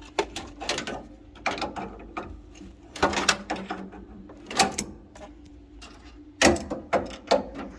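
Irregular clicks and knocks of metal parts being handled on a gas boiler, over a faint steady low hum.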